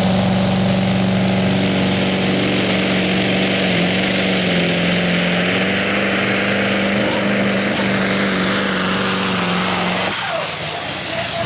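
Iveco supersport pulling truck's diesel engine running flat out under load as it drags the sled, with a steady high whine above the engine note. About ten seconds in the engine note drops away suddenly, and the high whine falls in pitch as the engine comes off power.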